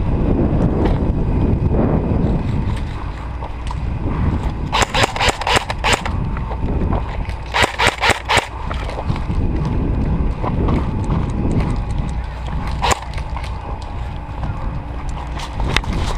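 Airsoft guns firing quick bursts of sharp snapping shots: a string of about five a little under five seconds in, another string around eight seconds, and a single shot near the end, over a steady low rumble.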